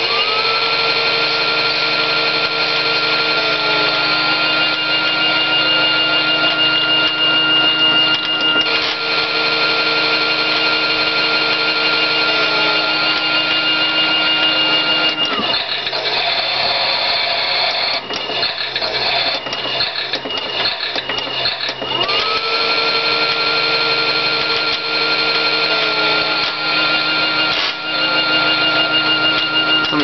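Miele toy washing machine on its spin: its small electric motor whines up to a steady high pitch, runs with a grinding rattle, winds down about halfway through and spins up again about six seconds later. The grinding, which the owner judges harmless, comes from the drive mechanism.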